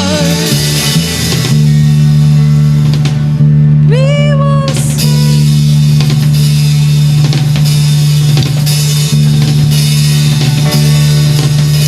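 Praise band playing an instrumental passage: drum kit and electric guitar over a loud, held low bass note, with one short note bending upward about four seconds in.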